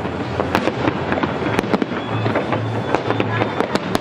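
Fireworks bursting: a dense, irregular run of sharp bangs and crackles over a steady hiss.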